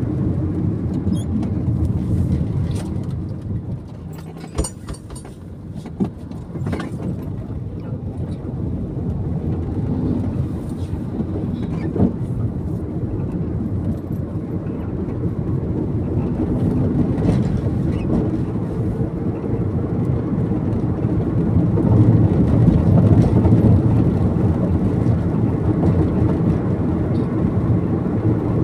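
Car driving, with engine and road noise heard from inside the cabin. It drops off briefly about four seconds in and is loudest about two-thirds of the way through. A few light clicks can be heard.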